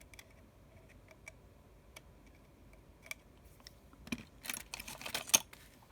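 Small hand tools clicking and scraping on the tiny internal screws and metal parts of an iPhone 6s during disassembly. Sparse light ticks at first, then a denser run of clicks and scratching about four seconds in, with one sharper click near the end.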